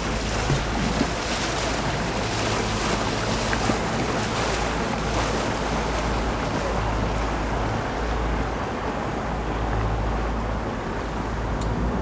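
Twin outboard motors idling low as the boat moves slowly in toward the ramp, a steady low hum under wind noise on the microphone; the wind eases about three-quarters of the way through.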